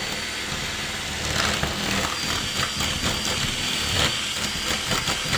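Power drill running with a 12 mm bit cutting through the uPVC window frame, the bit being dragged sideways to lengthen the hole into a vent slot. It is a steady grinding cut with a thin, even motor whine above it.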